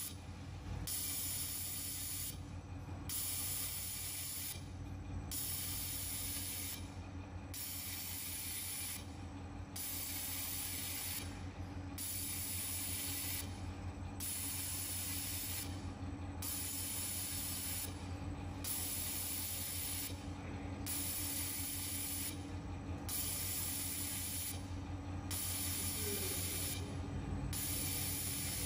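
Automatic fiber laser welder welding rings around the dimples of a stainless steel pillow plate heat exchanger: a hiss lasting about one and a half seconds per weld, breaking off briefly about every two seconds as the head moves to the next dimple, over a steady machine hum.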